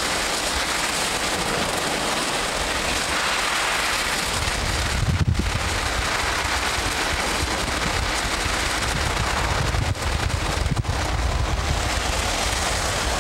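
Loud steady rush of wind and road noise from a moving car, picked up by the camcorder microphone. A low buffeting rumble joins about four seconds in.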